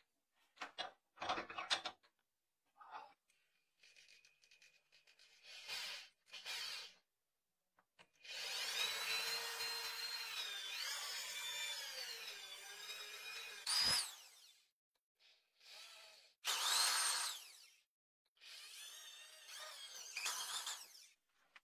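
Electric drill boring holes through a wooden handle block clamped in a steel vise. It runs in several spells: a long one starting about eight seconds in, lasting some six seconds, with the motor whine wavering in pitch, then two shorter runs near the end. A few short handling clicks and knocks come before the drilling.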